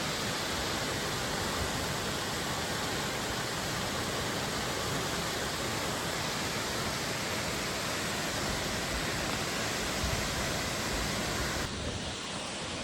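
Waterfall: a steady, full rush of falling water, dropping a little in level near the end.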